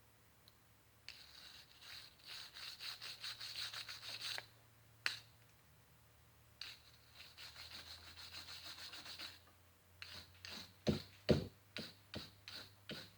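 Rapid back-and-forth scraping or scrubbing strokes on the metal of a pair of pliers, in two runs of several strokes a second, followed by a series of separate knocks and clicks near the end.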